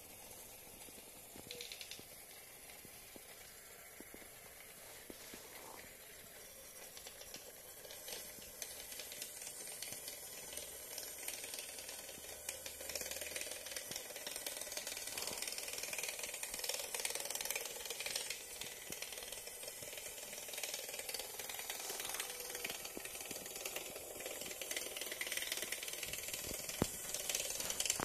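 Custom LEGO-monorail engine driven by a Pololu 1:50 geared motor, running along the toothed monorail track with a steady high gear whir and rattle that gets louder from about halfway through as it rounds the curve. The builder notes too much noise at turns and puts it down to the wheels.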